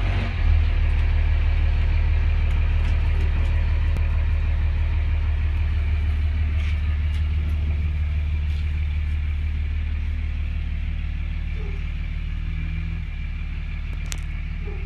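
A motor vehicle's engine running steadily, a low even hum that drops a little in level near the end.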